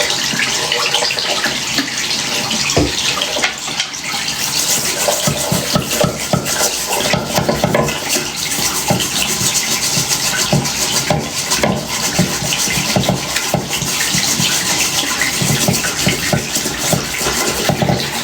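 Water running from a tap while an object is scrubbed and rubbed under the stream, with small irregular knocks and splashes.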